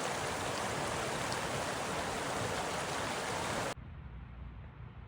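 Steady rushing noise like running water, cutting off abruptly near the end and leaving a quieter low rumble.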